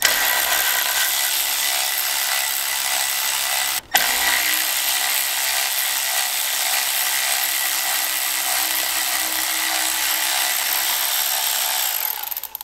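Cordless electric ratchet running with a deep 10 mm socket, spinning an upper studded bolt out of the EGR bypass valve flange. The motor runs steadily, stops for a moment about four seconds in, then runs again until just before the end.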